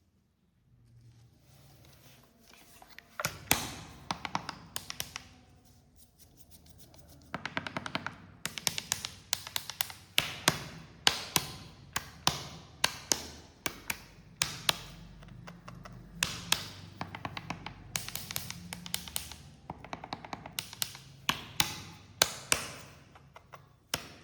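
A long series of sharp taps on a hard object: a few around three to five seconds in, then a steady run of roughly one to two taps a second from about seven seconds on.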